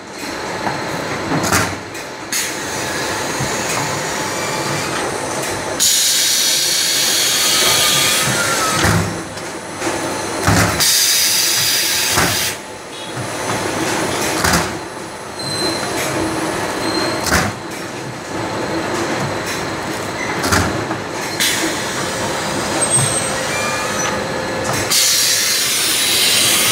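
A bottle shrink-wrapping machine with a shrink tunnel runs with a continuous mechanical clatter of its conveyors. Sharp knocks come every few seconds, and there are a few spells of louder hiss.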